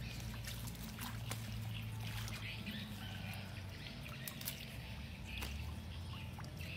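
Outdoor water sounds, trickling and splashing, with scattered sharp clicks and short bird chirps.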